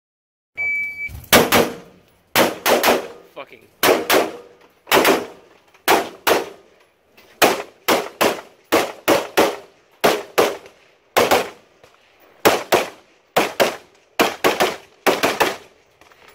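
A shot timer's start beep, then a carbine firing about fourteen quick pairs of shots. Each pair comes a fraction of a second apart, with about a second between pairs.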